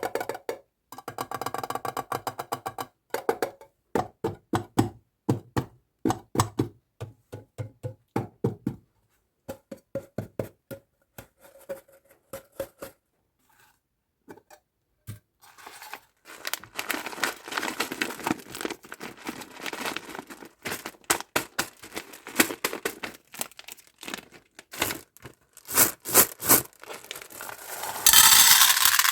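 Candy and toy packaging being handled and opened: sharp taps and clicks, then a long stretch of crinkling and tearing of plastic wrappers, with a loud burst of hiss near the end. A short run of percussive music fades out in the first few seconds.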